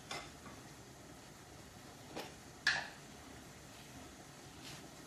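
Shrimp cooking in a covered stainless-steel pot on a gas stove: a faint steady hiss under the glass lid, with a few light clicks and one sharper clink with a short ring about two and a half seconds in.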